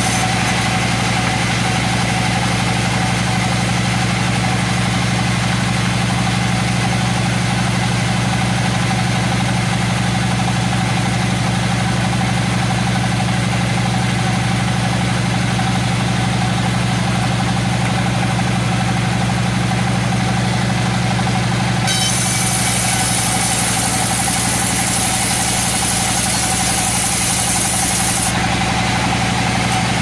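Vertical band resaw running with a steady machine hum, cutting old coconut wood; for several seconds near the end a high hiss joins as the blade bites through the beam.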